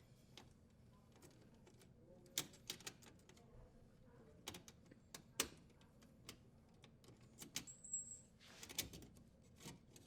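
Quiet, scattered clicks and light rattles, about ten spread a second or so apart, of a dishwasher's strain relief nut being unthreaded and the strain relief and power wires being pulled free of the junction box.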